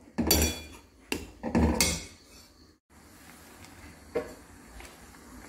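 Metal spatula scraping and knocking against a stainless-steel kadhai while stirring wet, cooking orange pulp and sugar: a few strokes in the first two seconds and one more about four seconds in.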